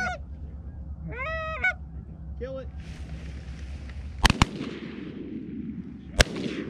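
Several honking goose calls, then three shotgun shots: two in quick succession about four seconds in and a third about two seconds later.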